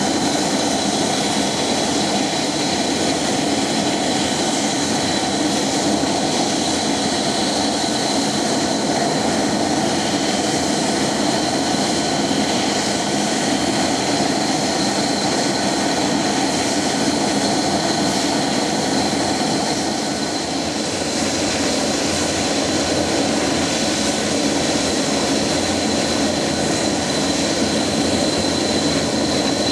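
Boeing 737-200's Pratt & Whitney JT8D turbofan engines running at idle: a steady, loud jet rush with a high whine held throughout, easing slightly for a moment about two-thirds of the way in.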